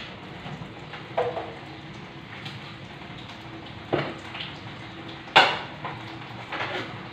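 A cooking utensil knocking and scraping against a large metal cooking pot four times, with a brief ring after each knock; the third knock is the loudest. A steady hiss runs underneath.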